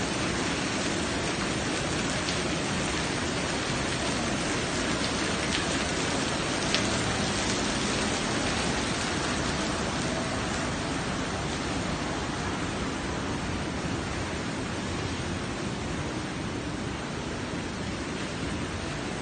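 Water falling from a wall of tiered bowl-shaped fountain basins and splashing steadily into the pool below, a constant rain-like rush. There is one brief click about seven seconds in, and the rush grows slightly fainter near the end.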